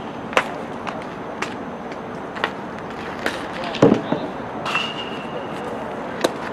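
Sharp pops of baseballs smacking into catchers' leather mitts, about one a second. The last and clearest comes near the end, just after the pitcher's follow-through, as his pitch lands in the catcher's mitt. A louder, duller thump comes a little past the middle.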